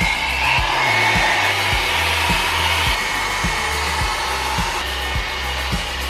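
Handheld hair dryer running steadily, a rush of blown air with a faint whine. Background music with a steady bass beat plays underneath.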